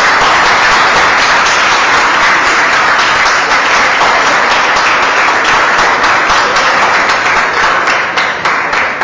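Audience applauding, a dense steady clapping that thins into scattered separate claps and fades near the end.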